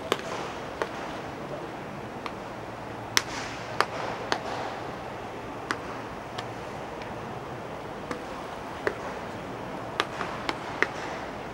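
A dozen or so sharp pops and clacks at irregular intervals over a steady background hum, several close together near the end.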